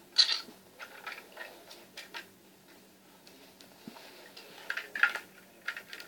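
Light, irregular clicks and taps of plastic Lego bricks being handled, with a small cluster of rattles about five seconds in.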